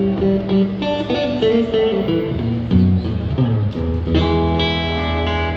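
Blues played on a cigar box guitar: a run of picked single notes over a low bass note, then a chord struck about four seconds in and left ringing.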